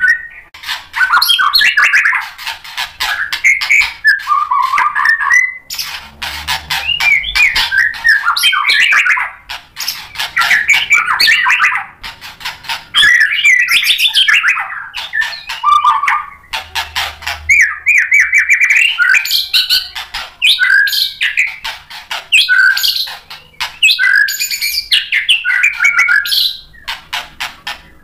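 White-rumped shama singing a fast, varied song: dense phrases of rapid clicking notes and short whistled slides, one after another with only brief breaks between them.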